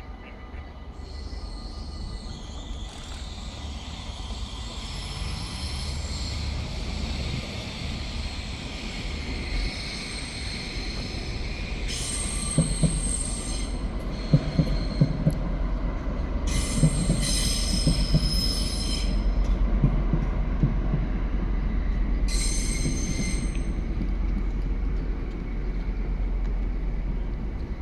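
A train running past on the rails, its rumble growing louder. Its wheels squeal in high metallic screeches several times, with a run of knocks in the middle.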